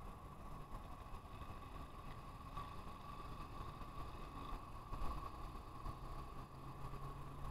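Wind buffeting the microphone with an uneven low rumble, over a steady hum of distant road traffic.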